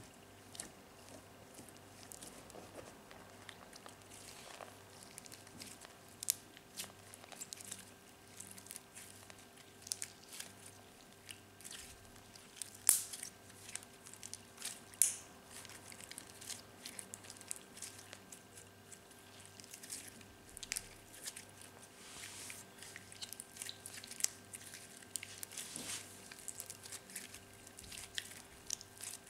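Slime kneaded and squeezed by hand with crumbled makeup powder worked into it: a steady stream of small sticky clicks, squishes and crackles, with a few sharper pops about halfway through. A faint steady hum lies underneath.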